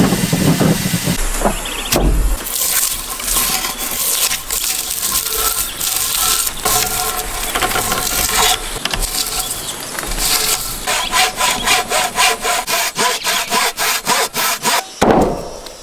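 Wooden frame saw cutting through a log, with rhythmic back-and-forth strokes that settle into about four strokes a second in the later part. A louder crack comes just before the end.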